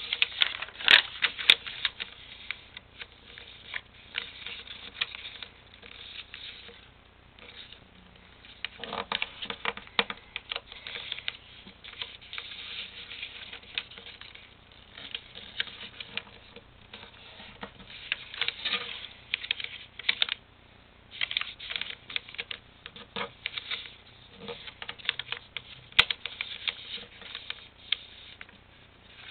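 A sheet of paper rustling and crinkling as it is folded by hand into a paper airplane, with creases pressed down. It comes in uneven spells of short crackles with brief pauses between folds.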